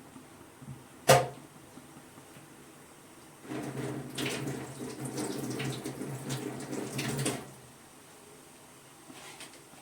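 A sharp knock about a second in, then about four seconds of water running and splashing into a vessel.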